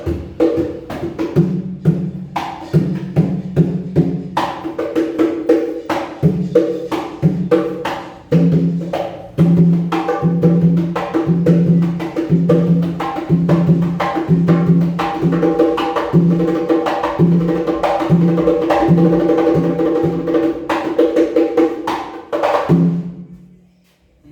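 Congas played by hand in a steady, driving rhythm of sharp slaps and ringing open tones. The playing stops abruptly about a second before the end.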